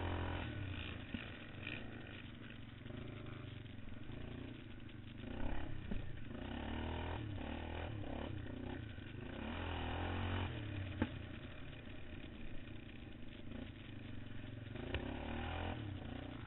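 Racing quad (ATV) engine heard from on board, revving up and dropping back again and again as the throttle opens and closes over a rough dirt track. Knocks and clatter from the machine over bumps, the sharpest about eleven seconds in.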